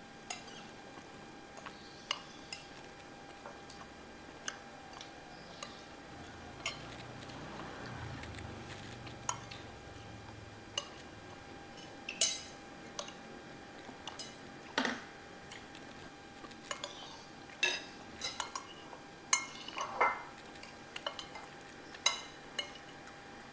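Spoons clinking and scraping against ceramic plates while eating: irregular single clinks, louder and more frequent in the second half.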